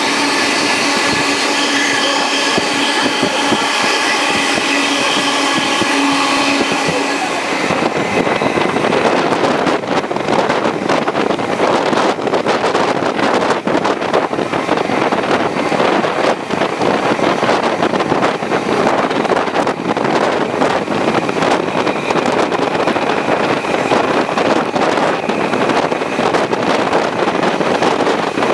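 A steam-hauled passenger train running at speed, heard from a carriage window: steady rushing wind and wheel-on-rail noise. Over the first seven seconds or so a set of steady tones rides on top; then the sound turns into a louder, rougher rush with rapid clatter.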